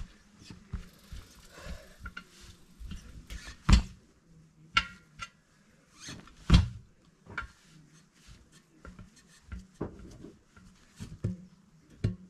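Tyre levers working a truck tyre's bead off the wheel rim by hand: irregular clicks, scrapes and knocks, with two loud metal strikes about four and six and a half seconds in and a brief ringing clink soon after the first.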